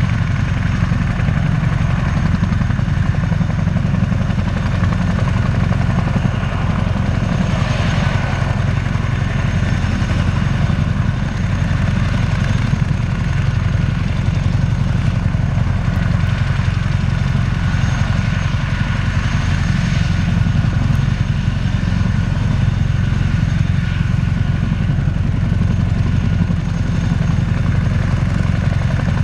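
Boeing CH-47F Chinook on the ground with both tandem rotors turning and its two T55 turboshaft engines running. A loud, steady low drone with a thin, even high whine above it.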